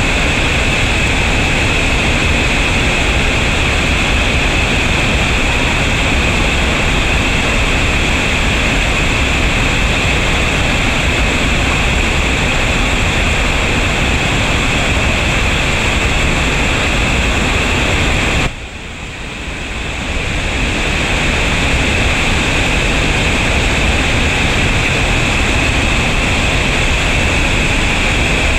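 Steady roar of a river waterfall and whitewater rapids pouring over a rock ledge. About two-thirds of the way through, the sound drops suddenly and builds back over a couple of seconds.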